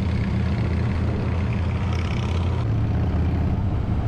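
A motor running steadily with a low, engine-like rumble, shifting slightly about two and a half seconds in.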